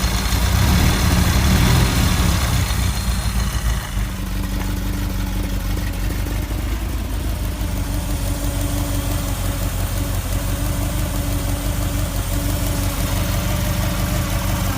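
Ferrari 308 GTS V8 engine running, busier for the first couple of seconds and then settling at about four seconds into a steady idle. Under it is a constant buzzing hum, like a swarm of flies, of unknown origin, which is put down to aged components.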